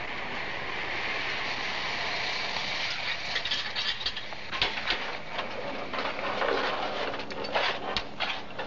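A pickup truck's engine runs steadily, then from about three seconds in a string of sharp metallic clanks and rattles is heard as a large sheet-metal gate is opened.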